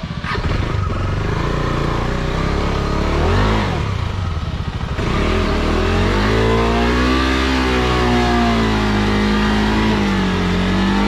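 Motorcycle engine revving under load in deep mud, its pitch rising and falling, with a short swell about three seconds in and a long high rev that wavers and dips near the end.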